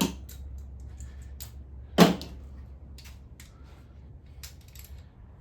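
Scattered light metallic clicks and one loud sharp knock about two seconds in, from hand tools and small metal parts being handled, set down and struck while taking an engine apart, over a steady low hum.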